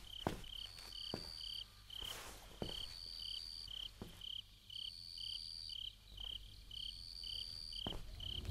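Crickets chirping: a short high chirp repeating two to three times a second, with a longer, higher trill about every two seconds. A few soft footsteps sound during the first few seconds.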